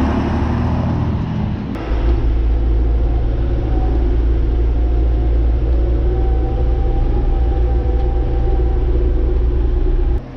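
Vehicle engine running with a steady low rumble; the sound shifts about two seconds in and then stays even.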